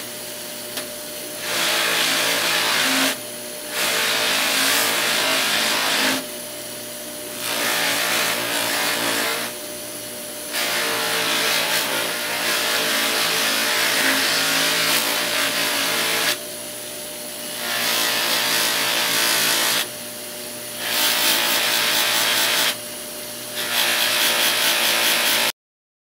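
Bench buffer's motor running with a steady hum while a stag-antler knife handle is pressed against the spinning cloth buffing wheel in repeated passes, each pass a loud rubbing hiss lasting a couple of seconds. The sound cuts off suddenly near the end.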